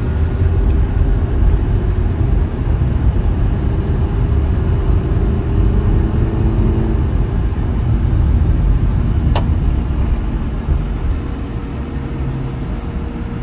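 Steady low rumble of a moving car: road and engine noise, with a single sharp click about nine seconds in.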